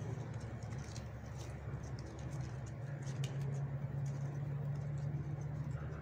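Soft rustling and light scratching of coconut palm leaf strips being twisted and woven by hand, over a steady low hum.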